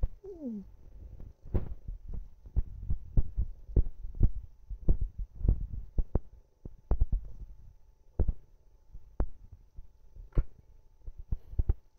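A hand scratching a tabby cat's back fur, close to the phone: irregular soft thumps and rustles over a low throbbing rumble.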